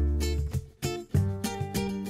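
Background music: a quick run of short, separate notes over low bass notes.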